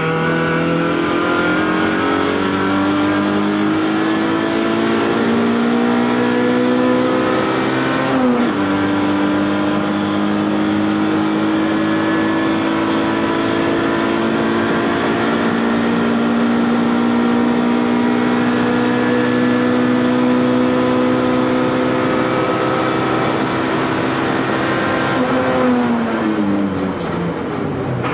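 Toyota AE111 Trueno's 4A-GE 20-valve four-cylinder engine, heard from inside the cabin, accelerating hard on track. The revs climb, fall sharply with an upshift about eight seconds in, then climb slowly for a long pull, and drop away near the end as the car slows for a corner.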